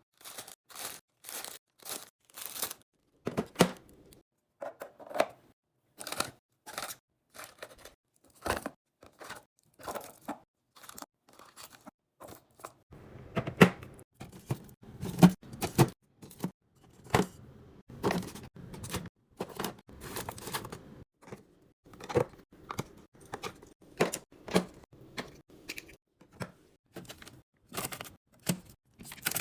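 Irregular clicks, taps and knocks of containers and packaging being handled and set down while a fridge is restocked, with tearing and crinkling of packaging; busier and fuller in the middle stretch.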